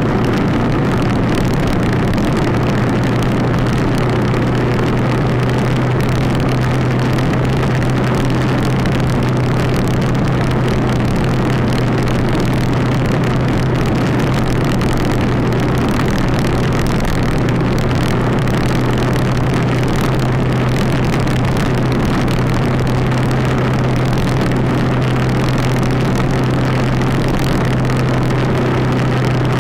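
Yamaha 250 single-cylinder motorcycle engine running steadily at cruising speed, one unchanging engine note, under a dense rush of wind and road noise.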